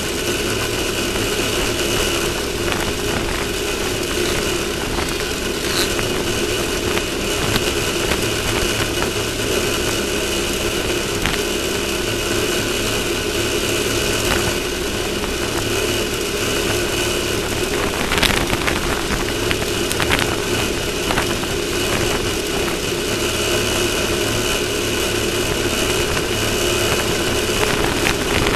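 Off-road race vehicle's engine running steadily at an even pitch, with a few brief clicks and knocks.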